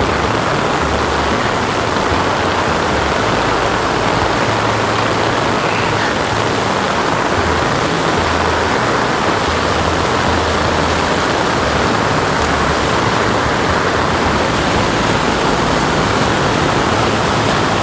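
Floodwater rushing down a storm creek off the mountain: a loud, steady torrent of water.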